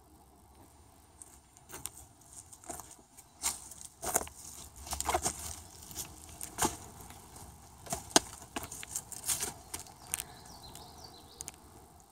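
Irregular knocks, sharp clicks and short scrapes over several seconds, busiest in the middle and fading out near the end.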